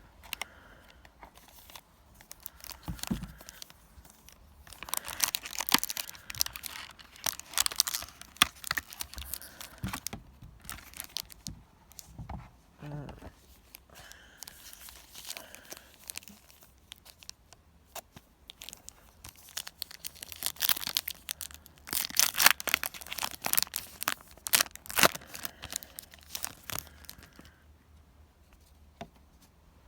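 Yu-Gi-Oh booster pack wrappers being torn open and crinkled by hand, in two long spells of tearing and crackling about 5 seconds and 20 seconds in, with quieter handling between.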